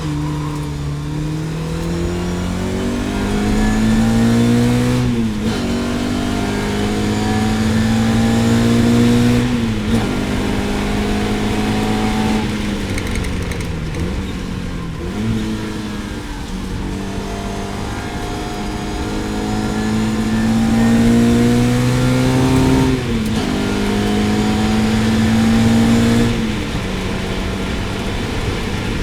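Lotus Elan race car's engine pulling hard through the gears. Its pitch climbs and then drops sharply at each gear change, several times over.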